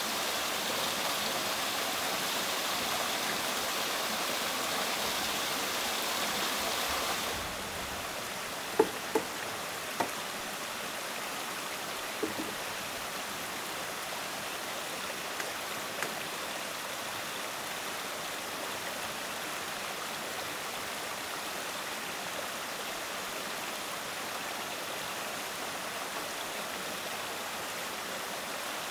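Steady rushing noise like running water from a nearby stream. It drops a little about seven seconds in, and a few light knocks follow over the next several seconds.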